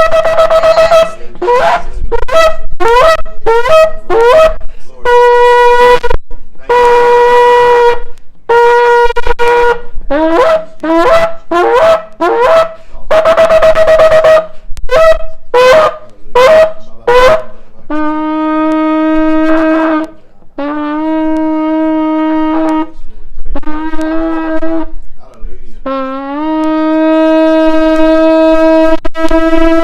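A shofar being blown: first a quick run of short blasts that jump between two pitches, then several long held notes on a lower pitch, the last one sliding up at its start and held.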